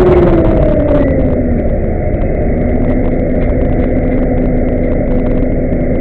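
Rooikat 76 armoured car's V10 diesel engine running while the vehicle drives. The engine note falls over the first second or two as the revs drop, then holds steady.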